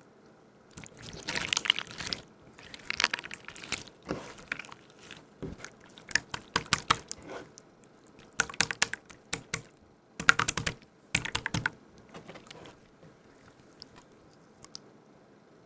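Slime squelching and crackling as it is squeezed and handled, in about six short bursts of rapid wet clicks and pops with quiet gaps between.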